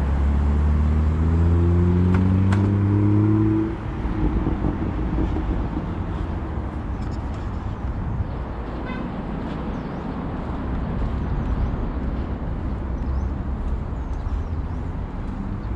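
A motor vehicle's engine accelerating, its pitch rising steadily, cut off abruptly about four seconds in. Then steady road traffic noise.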